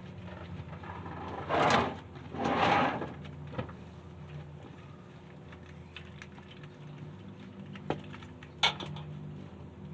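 Two short, loud scraping rasps a little under a second apart, then a few sharp clicks and a knock, over a steady low hum: work noises from handling parts or tools.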